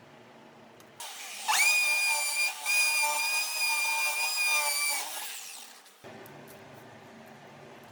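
Small electric power tool motor, a drill-like whine, spinning up to speed, running steadily for about three seconds with a brief drop near the start, then winding down.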